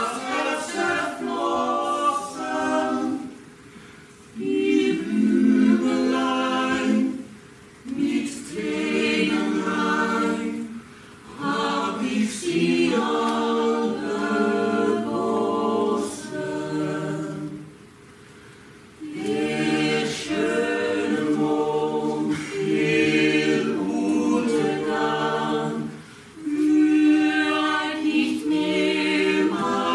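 A mixed ensemble of men's and women's voices singing together unaccompanied, in sung phrases broken by short pauses.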